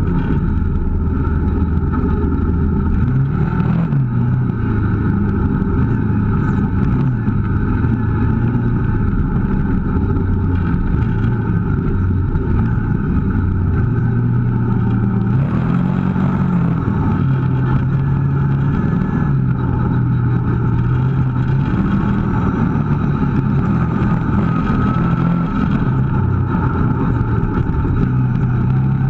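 Kawasaki KVF 650 ATV engine running under way on a rough trail. Its pitch rises and falls repeatedly as the throttle is worked.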